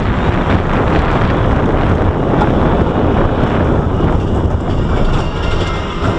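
Expedition Everest roller coaster train rolling along its steel track, with wind rushing over the microphone. The noise eases a little near the end as the train reaches the chain lift hill.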